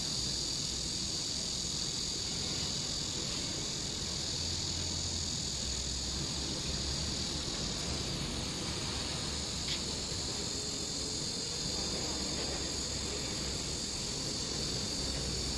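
Low steady hum of a hydraulic modular trailer's power unit running while its control levers are worked; the hum shifts in pitch a few times. Over it runs a steady high shrill of insects.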